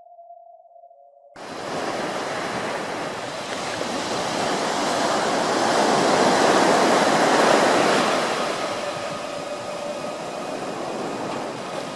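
A faint steady tone, then a loud even rushing noise that starts abruptly a little over a second in, swells toward the middle and eases off again.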